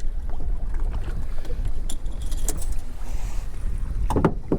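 Low, steady rumble from a small fishing boat on the water, with scattered clicks, knocks and light rattles from handling gear aboard and a louder knock about four seconds in.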